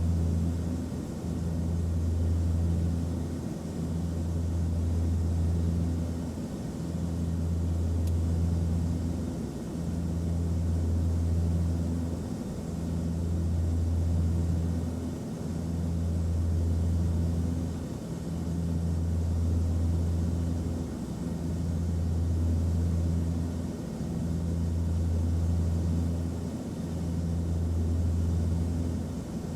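Airplane cabin noise: a steady low engine drone and hum over a faint hiss, swelling and easing evenly about every three seconds.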